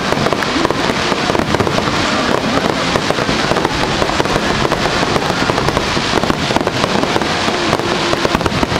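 Aerial fireworks barrage: many shells going off in rapid succession, a dense, near-continuous string of bangs with no pause.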